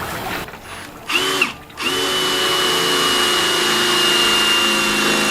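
Hand-held power drill: a short burst about a second in that spins up and winds down, then a run at steady speed from about two seconds in, a constant high whine.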